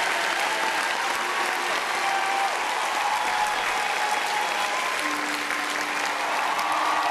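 Audience applauding steadily, many hands clapping at once, with a few faint cheers.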